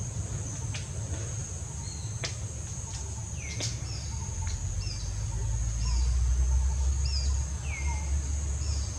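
Outdoor ambience: a steady high-pitched insect drone, with a bird calling in short falling chirps about once a second from about three and a half seconds in. Underneath runs a low rumble that grows louder past the middle.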